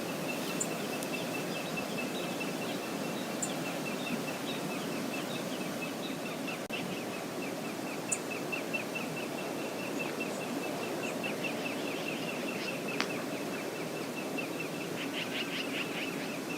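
Steady rush of water pouring over Brooks Falls, with a small bird giving a long, even series of rapid high chirps over it and a few sharper, higher chirps now and then.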